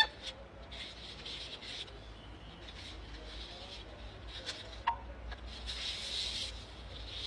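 Soft rubbing and scraping noises of hands handling a raw plucked chicken, with a sharp click at the start and another about five seconds in, and short hissy rubbing bursts.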